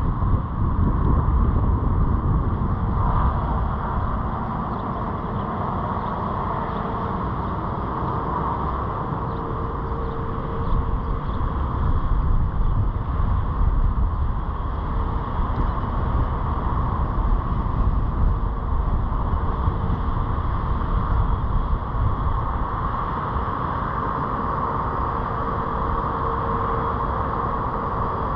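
Car driving slowly, heard from the vehicle: a steady low rumble of engine and tyres on asphalt, with a faint steady hum above it.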